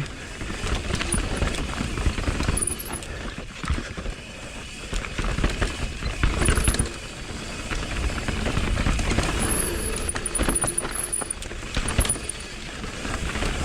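Mountain bike rolling down a dirt trail: tyres on dirt, with chain and frame rattling over bumps and wind buffeting the microphone.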